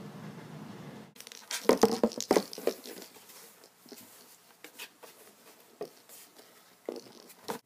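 Black cat moving inside a cardboard box, its claws and body scraping and crackling against the cardboard. There is a loud cluster of scratches a second or two in, then scattered scrapes and clicks, with one more burst near the end. Before that, a steady low hum cuts off about a second in.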